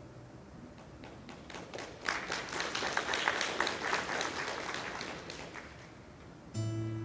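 A small congregation applauding with sparse, separate claps that swell and then die away. About six and a half seconds in, an acoustic guitar strums a chord that rings on.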